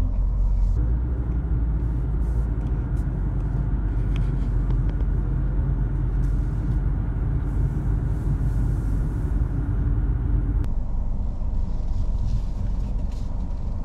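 Automatic car wash machinery running: a steady low rumble with a hum over it that cuts off suddenly about ten seconds in.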